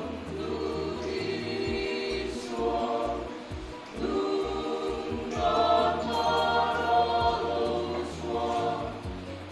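Mixed church choir of men and women singing in harmony in long held phrases, with a brief break between phrases about four seconds in.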